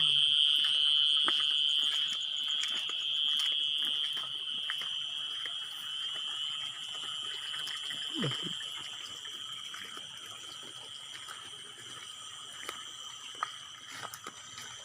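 Insect chorus giving a steady high-pitched drone, fading gradually as it is left behind; nobody present could say what it was.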